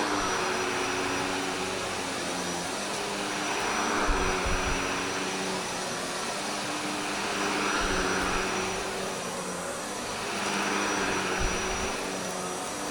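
Shark Navigator Lift-Away upright vacuum running on carpet: a steady motor hum and rush of air that swells and fades about every four seconds as it is pushed.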